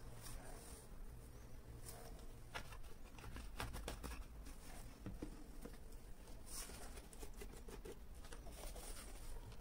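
Faint handling noises from plastic oil-additive bottles being picked up, turned and set down: scattered light taps, clicks and rustles over a low room hum.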